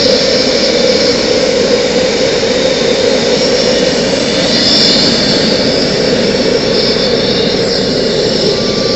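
Homemade propane forge's single gas burner firing: a steady, loud rush of burning propane inside the firebrick chamber.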